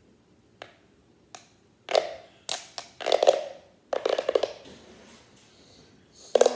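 Plastic fidget tube being stretched and squashed by hand: two faint single clicks, then five short bursts of rapid clicking as its ridged sections snap open and shut, with a hollow ring to them.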